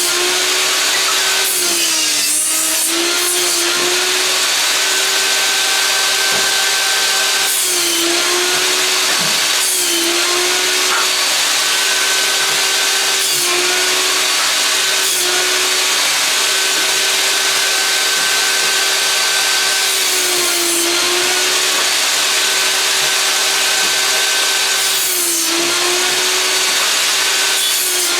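Einhell table saw running steadily with a high whine, its pitch dipping briefly several times as the blade bites into and cuts through old boards.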